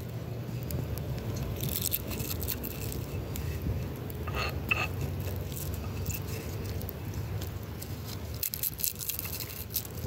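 Walnut kernels being crushed with a hand-held stone on a flat stone slab: crunching and gritty scraping of stone on stone, in irregular strokes, with a steady low rumble underneath.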